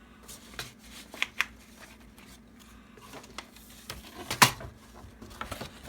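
Hands moving small objects about on a table: a few light clicks and taps, with one louder sharp knock about four and a half seconds in, as something is set down.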